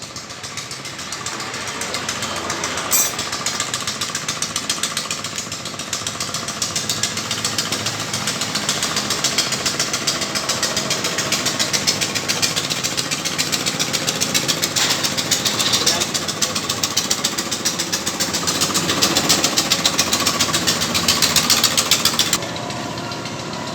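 A machine or power tool running with a fast, even rattle that cuts off suddenly near the end.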